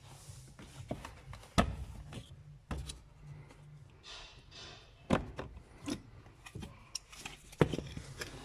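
Hard plastic clicks and knocks from the Suzuki Swift's cabin filter housing and interior trim being unclipped and handled, about five sharp ones with softer rustling between.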